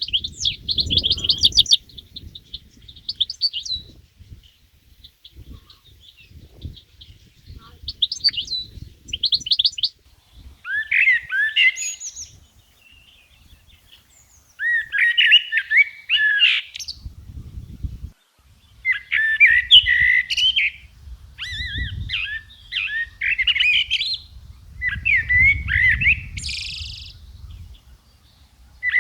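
Songbirds singing: quick chirping trills in the first part, then repeated short warbled phrases of fast rising and falling notes every couple of seconds, with a low rumble underneath at times.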